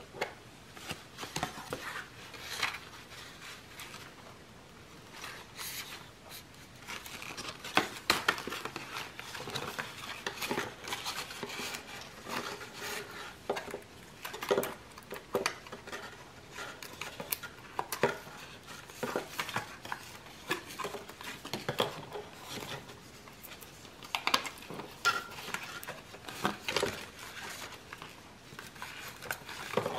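Hands unpacking clip-in hair extensions from a stiff paper card holder: irregular small clicks and taps with paper and plastic rustling.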